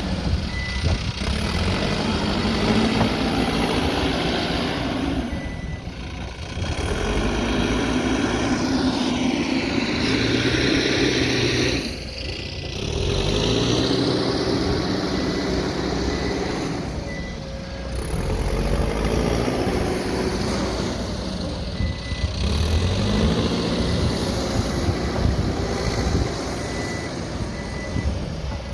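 Mahindra backhoe loader's diesel engine working under varying load, revving up and easing off several times. A high-pitched reversing alarm beeps now and then.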